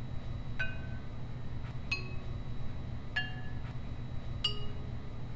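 Four light, bell-like chime pings spaced about a second and a half apart, each ringing briefly and fading, with a couple of fainter ticks between them, over a steady low hum.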